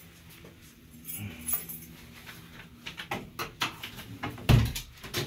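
Keys and door hardware rattling and clicking, then a heavy thump about four and a half seconds in as the building's glass entrance door shuts. A low steady hum sits under the first few seconds.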